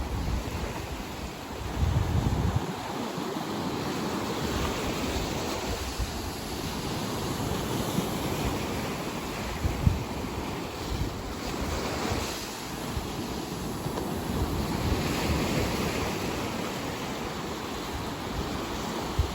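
Black Sea surf washing in steadily, swelling as waves break about eleven and fifteen seconds in. Wind buffets the microphone in low rumbles a few times.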